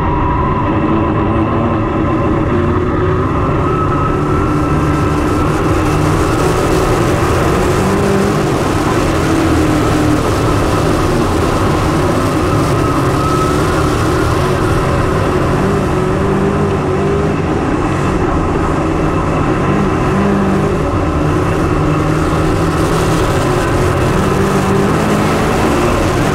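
Dirt late model race car V8 engines running hard at speed, a steady loud drone whose pitch wavers slightly up and down.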